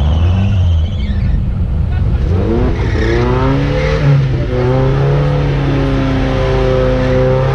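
Off-road vehicle's engine revving: the pitch climbs about two and a half seconds in, then holds at high revs.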